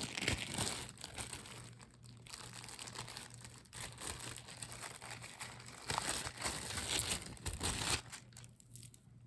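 Small plastic jewelry bags crinkling and rustling as they are handled and opened, louder in the first second and again from about six to eight seconds in, then quieting near the end.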